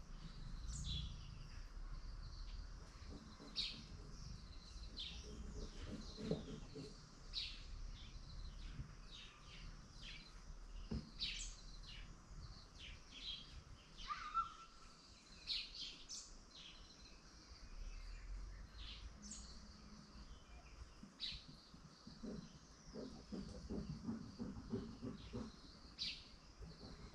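Small birds chirping: short, high chirps scattered irregularly, several a second at times, over a low background rumble.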